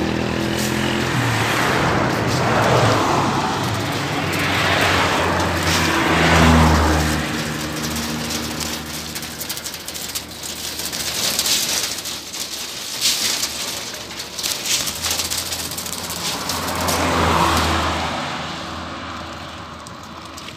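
Road traffic: several vehicles pass close by one after another, each swelling up and fading away.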